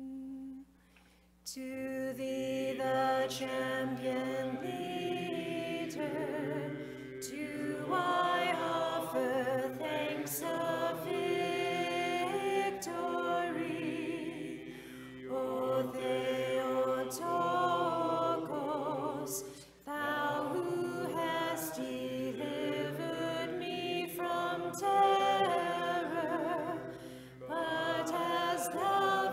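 Voices singing an unaccompanied Orthodox liturgical chant in long phrases, with short pauses for breath between them. A brief held note sounds just before the singing begins.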